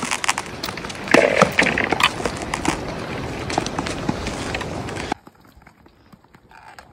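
Long-distance skate blades gliding and scraping over clear black ice, with ski-pole tips clicking and tapping on the ice. The sound drops much quieter suddenly about five seconds in.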